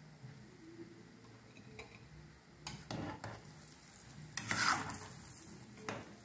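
Dough balls deep-frying in bubbling oil in an aluminium pot, a faint steady sizzle. From about three seconds in, a metal ladle stirs them and scrapes against the pot, loudest around four and a half seconds in, with a sharp clink near the end. The bolinhos are almost done frying.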